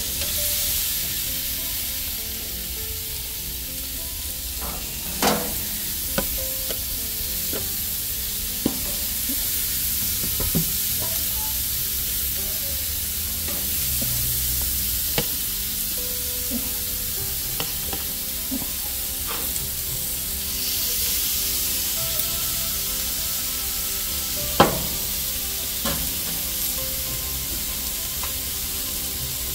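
Pomfret and salmon sizzling on the hot grates of a gas grill, a steady hiss, with metal tongs clicking against the grates now and then; the sharpest clicks come about five seconds in and about five seconds before the end.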